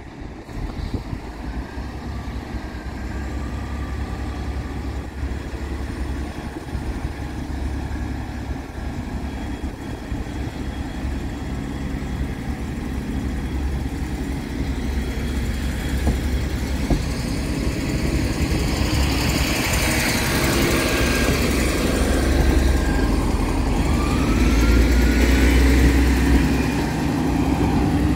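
Diesel multiple unit's underfloor engine running as the train pulls away from the platform and draws nearer, growing steadily louder. A short rising whine comes in about two-thirds of the way through as it picks up speed, and wheel and engine noise is loudest as it reaches the crossing near the end.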